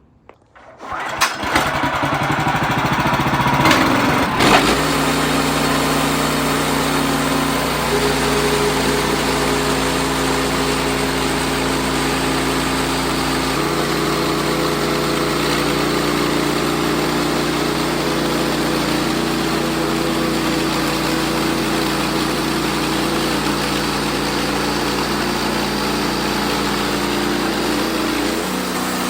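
Wood-Mizer LX55 sawmill's engine starting up about a second in, then running steadily as the mill saws a log, its tone shifting slightly a couple of times.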